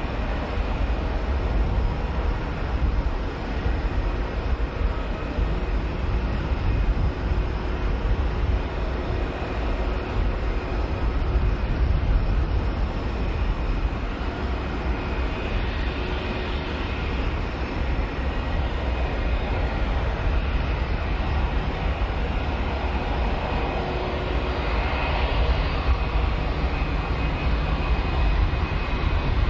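Airbus A320-232's IAE V2500 turbofan engines running at taxi power: a steady low rumble with a faint whine above it, swelling slightly a couple of times.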